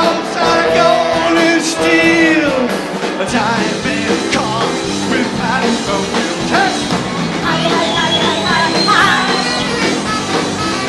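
Live rock band playing with singing: drums and electric guitar under the vocals, with long held notes for the first couple of seconds, then a busier passage.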